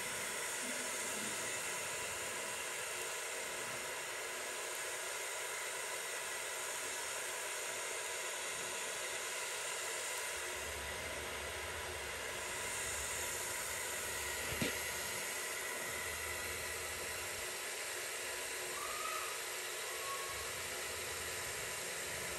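Steady hiss with no change in level, and a single sharp click about fifteen seconds in.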